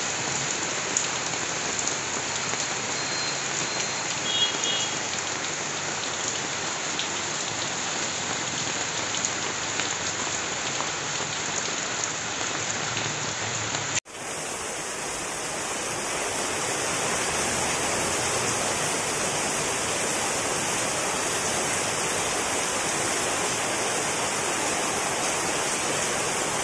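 Torrential rain pouring steadily, a dense even hiss. About halfway through the sound cuts out for an instant and comes back.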